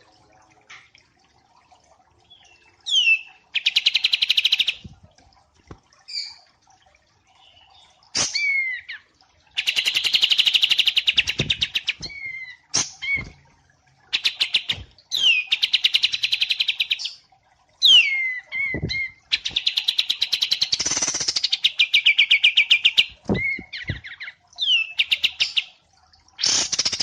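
Songbirds, wambi mini and kapas tembak, singing in repeated phrases: fast, rattling trills about one to two seconds long, alternating with short whistled notes that sweep downward.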